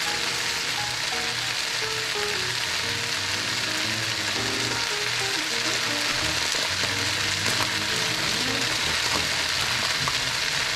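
Chicken sausage and vegetables stir-frying in a hot pan: a steady, loud sizzle that runs evenly throughout, with background music underneath.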